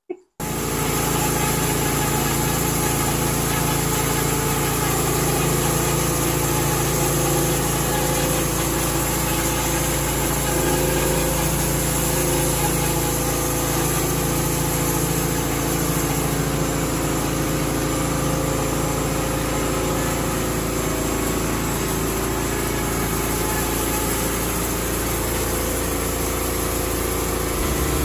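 Large slabbing band sawmill running, its band blade cutting through a big maple log: a steady, even machine hum.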